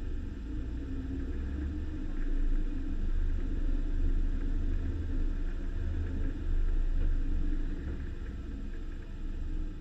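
Vintage Dodge Power Wagon truck running over a trail, mostly a deep low engine rumble that swells and eases a few times.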